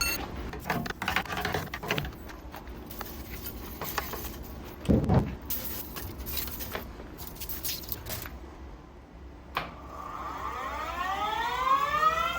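Clicks and knocks of metal parts being handled at a lathe, with a single heavier thump. Near the end the lathe spindle starts and spins up with a rising whine.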